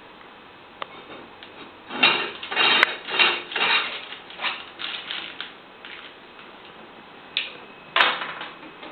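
Irregular bursts of clattering and rattling, bunched together for a couple of seconds and then coming more sparsely, with a couple of sharp clicks.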